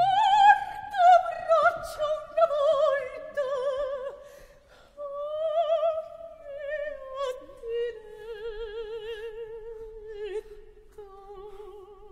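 A single high operatic voice singing unaccompanied: long held notes with wide vibrato, stepping slowly down in pitch, broken by a few short breaths, like a bel canto cadenza.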